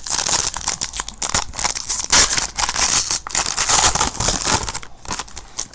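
Wrapper of a trading-card pack being torn open and crinkled: a dense crackling full of sharp clicks that thins out near the end.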